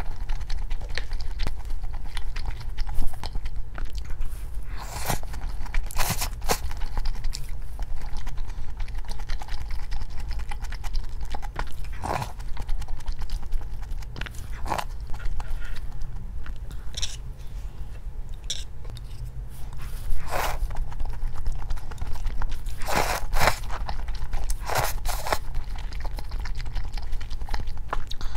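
A person eating, chewing and biting into crunchy food, with a sharp crunch every few seconds at an uneven pace.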